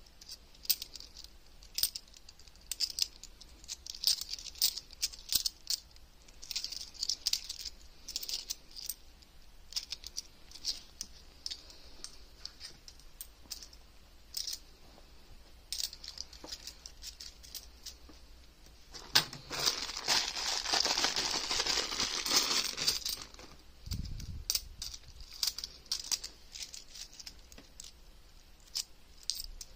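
50p coins clicking and clinking as they are handled and shuffled through by hand, in short irregular taps. About 19 seconds in comes a louder stretch of some four seconds of rustling and clatter from the plastic coin bags and coins, followed by a low thump.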